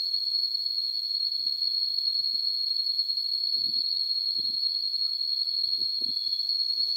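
A steady, high-pitched insect drone from the surrounding forest, holding one pitch without a break. A few soft, low knocks come and go underneath it.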